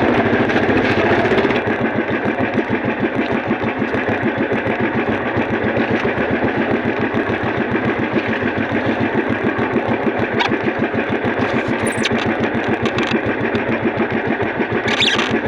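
A small engine running steadily, with a fast, even putter that does not change speed.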